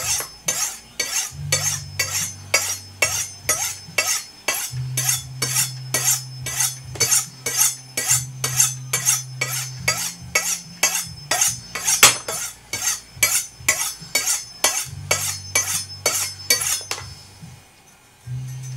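A VG10 damascus kitchen knife blade drawn down the ceramic rods of a Spyderco TriAngle (Sharpmaker) sharpener in quick, even strokes, about three a second, each a short metallic scrape; the strokes stop near the end. A low hum comes and goes underneath.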